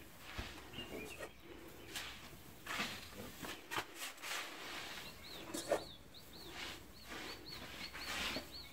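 A small bird chirping short, high notes over and over, about three a second through the second half, with the dry rustle of a bowl scooping loose grain fodder from a pile on a tarp.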